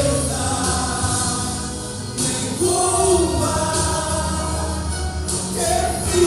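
Men's choir singing a Pentecostal gospel hymn in long held notes, over a band accompaniment with a steady bass.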